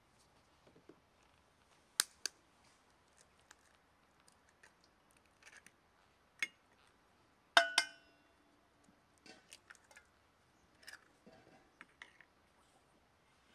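Hen's eggs knocked against the rim of an enamel bowl to crack them, giving sharp clicks. The hardest knock, about halfway through, sets the enamel bowl ringing for about a second. Smaller clicks follow as the shells are handled.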